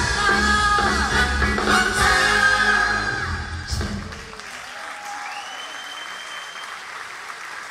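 Army band playing live with a singer, the song ending about four seconds in; the audience then applauds, and someone whistles over the clapping.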